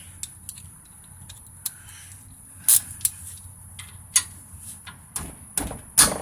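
Hand tools clicking and knocking on a brake caliper and its bolts while the caliper is being unbolted: scattered sharp clicks at uneven intervals, the loudest near the end.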